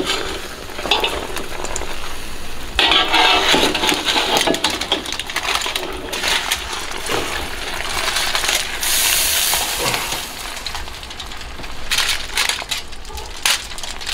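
Metal tongs clicking and clinking against a steel wok and a wire rack as a heap of braised pork intestines is lifted out, with a couple of short stretches of hiss.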